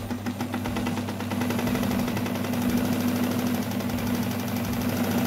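Necchi sewing machine run by its electric motor: a steady hum with a fast, even mechanical clatter, getting louder about a second in. A rag with polishing paste is held against the spinning handwheel, so the motor is driving the wheel to polish it.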